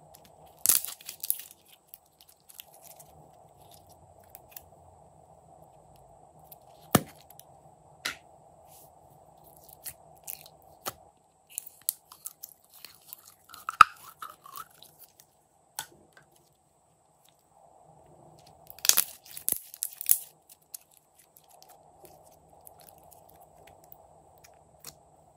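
Hands handling slime: scattered sticky crackles and clicks as slime is pulled and squeezed and small slime tubs are opened, with two dense bursts of crackling about a second in and again around two-thirds of the way through. A faint steady hum runs underneath, dropping out for a few seconds in the middle.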